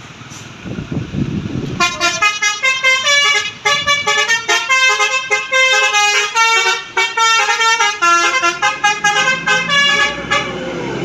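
Bus telolet horn (Basuri horn set) playing a quick melody of stepping notes. It starts about two seconds in and runs for about eight seconds. A low vehicle rumble is heard just before it.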